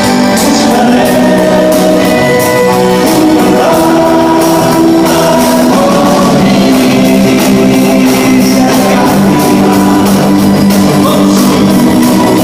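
A live band playing a loud rock song with singing, guitar and drums in a large hall.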